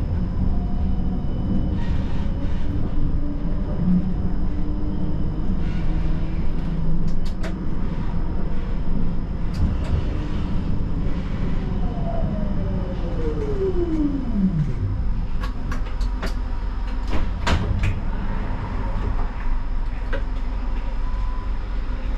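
Siemens Combino tram running with a steady low rumble, its traction motor whine gliding down in pitch as it slows for a stop. A few sharp clicks follow about two-thirds of the way in.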